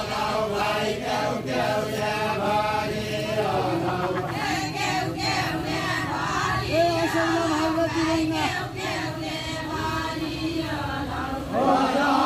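A group of men singing a Deuda folk song together in a chant-like unison as they dance in a circle. The sung lines hold long notes, and a new line starts loudly near the end.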